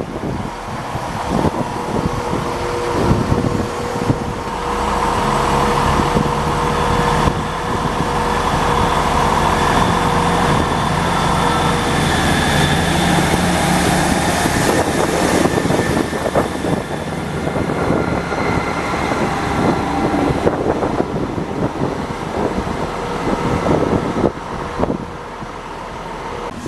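A large vehicle running: a steady low engine hum with a higher whine above it, building a few seconds in and easing near the end.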